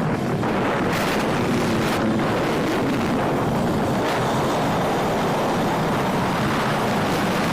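Steady wind noise buffeting the microphone over a low vehicle rumble, as when recording while on the move.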